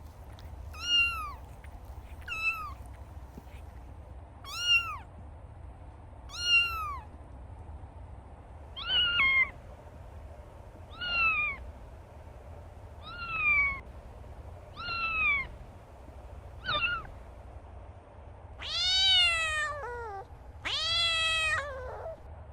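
Kitten meowing over and over, high-pitched calls about every two seconds, with two longer, louder meows near the end.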